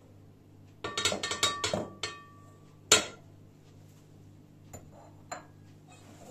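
Quick run of clinks and taps on a stainless steel mixing bowl, ringing briefly, for about a second as flour is knocked out of a small bowl into it, then one sharp knock about three seconds in, followed by a couple of faint ticks.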